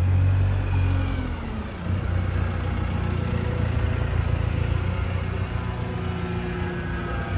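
Single-deck bus's engine running as the bus pulls away and drives past, a steady low drone.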